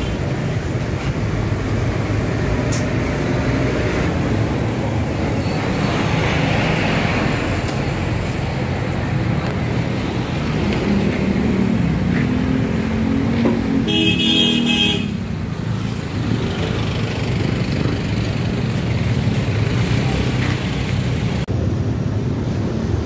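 Steady road and engine rumble of a car moving through traffic, with a vehicle horn honking once for about a second a little past halfway.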